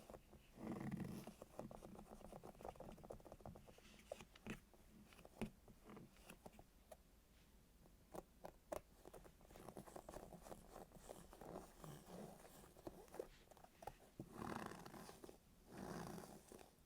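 Hands squeezing and handling soft squishy toys: faint soft squishing and rustling with many small clicks and crackles, a little louder about a second in and again near the end.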